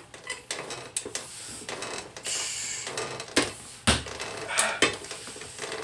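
Hand wheel of a 1996 ProForce groin stretcher being cranked, the spreader mechanism clicking and knocking irregularly as the leg arms are driven wider, with one heavy knock about four seconds in.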